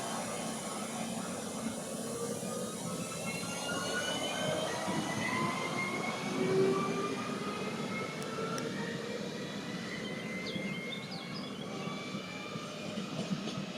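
Train running, with several whining tones that rise steadily in pitch as it gathers speed.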